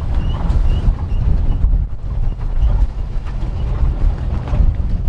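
Sailing yacht's inboard engine running at low speed as the boat backs toward the quay for a stern-to mooring, a steady low rumble mixed with wind on the microphone. A few faint high chirps in the first second or so.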